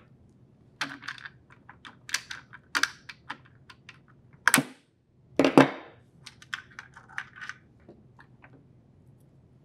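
Sharp plastic clicks and taps as a refrigerator freezer door switch sensor is squeezed with pliers and worked free of its plastic rail. Two louder knocks come about halfway through, then lighter clicks.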